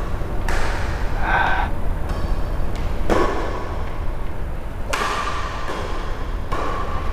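Badminton rackets striking a shuttlecock during a rally: about four sharp hits, one every one and a half to two and a half seconds, over a steady low rumble.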